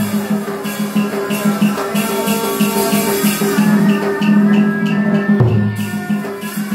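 Tuồng theatre ensemble music: drums and rattling percussion under a sustained melody line, with a quick run of repeated short notes and a heavy drum stroke about five and a half seconds in.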